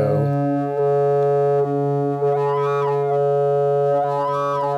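Double Knot v3 synthesizer holding a sustained tone, both oscillators synced to a square wave from a function generator. The base pitch stays put while the upper overtones sweep up and back down twice as an oscillator knob is turned, changing the timbre.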